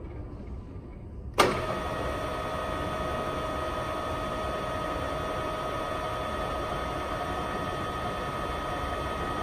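Wilton radial arm drill's spindle drive cutting in abruptly with a clunk about a second and a half in, then running steadily with a constant whine.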